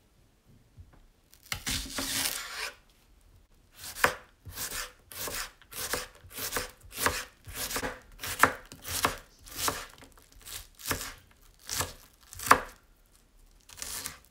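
Kitchen knife chopping a peeled onion on a wooden cutting board. One longer drawn-out cut comes about a second and a half in, then a steady run of single chops, about three every two seconds.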